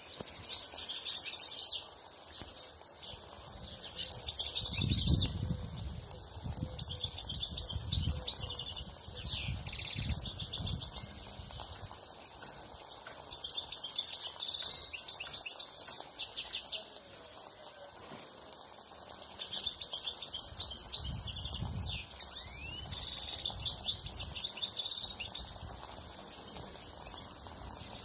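European goldfinch singing: bouts of rapid, tinkling twitters a few seconds long, repeated about every three to five seconds with short pauses between.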